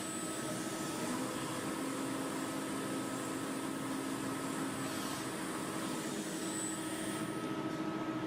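Machine tool running steadily: an even whirring hum with a few constant tones held through it.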